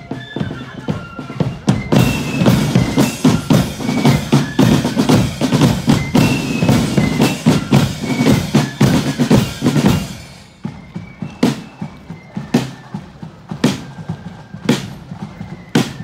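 Marching flute band playing: a high flute melody over side drums and bass drum, loud and dense from about two seconds in. About ten seconds in, the tune stops and only drum beats keep time, roughly one strike a second.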